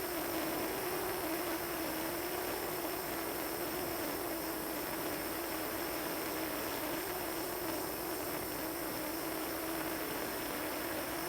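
Jeweller's soldering torch flame burning with a steady, even hissing rush, heating a solder joint on a silver ring.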